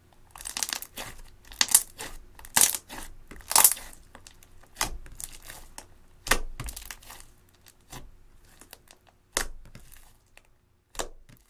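Thick pink slime, clear slime mixed with eyeshadow, being pressed, folded and stretched by hand, giving a run of irregular sticky crackles and pops, some loud, that thin out near the end.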